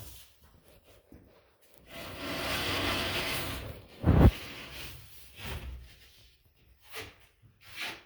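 A sheet of drywall scraping and rubbing along wooden 2x4s for a couple of seconds, then a single heavy thump, followed by a few lighter knocks.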